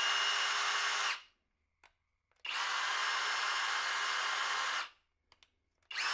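Kobalt 24V Max brushless SDS-plus rotary hammer running with no bit and no load, triggered in short bursts. Its steady whine stops about a second in, runs again for about two and a half seconds in the middle, and starts once more at the very end. It runs without trouble on the XTR high-output battery.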